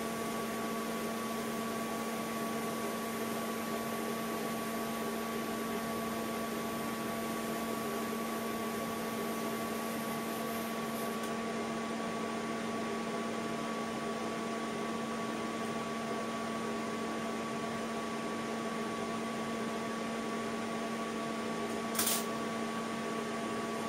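TIG welder running with a steady electrical hum while tack-welding a stainless steel tube, the faint hiss of the arc stopping about halfway through. A short sharp click near the end.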